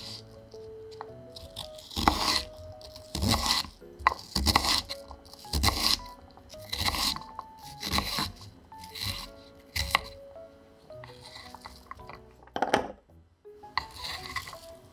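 Repeated crisp crunching of a crunchy baked pastry shell, about one crunch a second and about ten in all, over soft background music.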